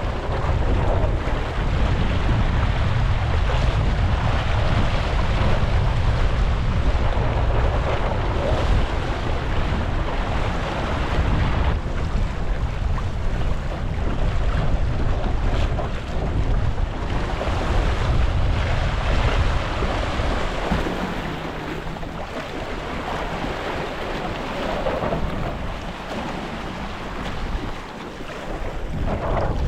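Wind buffeting the microphone over water rushing and splashing along the hulls of a Hobie Tandem Island sailing kayak under sail in choppy water. The low wind rumble eases about two-thirds of the way through.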